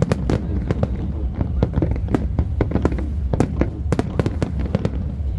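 Aerial fireworks going off in rapid succession: a dense string of sharp bangs and crackles, several a second.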